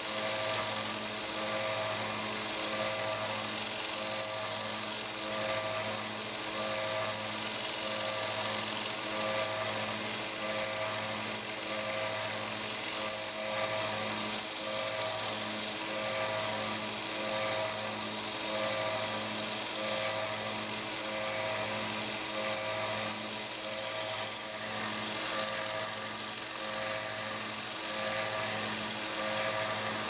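WEN 1x30 belt sander running with a 600-grit belt while a pocket knife blade is held against it to reprofile and sharpen the edge: a steady motor hum that pulses about once a second, under a hiss of steel on the abrasive belt.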